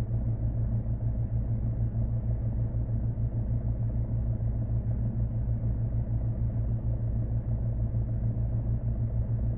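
Car engine idling: a steady low rumble with a fast flutter.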